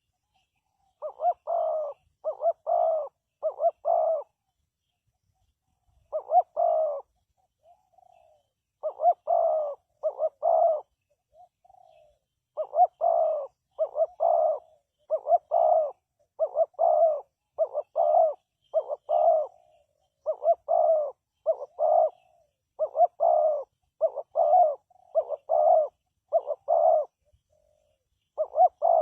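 Spotted dove cooing: short phrases of two or three coos repeated over and over, with brief pauses after about four seconds and around eleven seconds.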